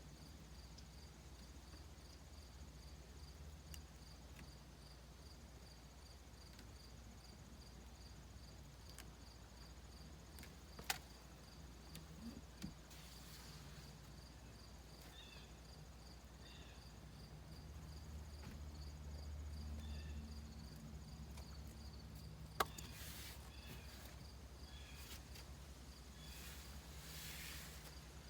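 Crickets chirping in an even, continuous pulse over a faint low hum, with a few sharp clicks or knocks, the loudest about eleven seconds in and again about twenty-two seconds in.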